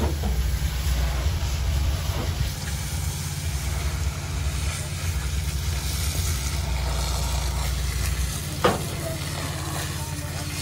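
Water from a fire hose spraying onto a smouldering burnt tree trunk, a steady hiss and sizzle, over a low drone that drops away about eight seconds in. A short knock sounds near the start and again near the end.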